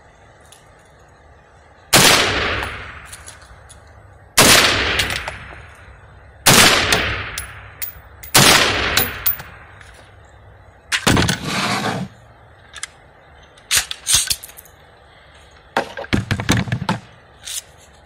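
AR-15 rifle shots fired in an indoor range, four loud reports about two seconds apart, each followed by a long echoing tail. Quieter sharp knocks and clatters follow in the second half.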